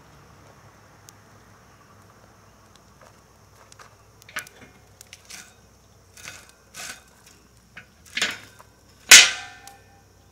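A series of sharp knocks and clicks from something being handled, ending about nine seconds in with the loudest, a single clang that rings briefly. A steady high chirring of insects runs underneath.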